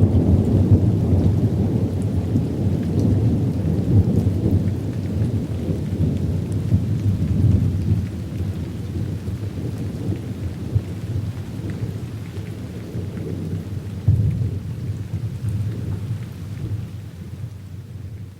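Thunder rumbling after a lightning crash, a deep rolling rumble that slowly dies away, with a brief swell about three-quarters of the way through before fading out at the end.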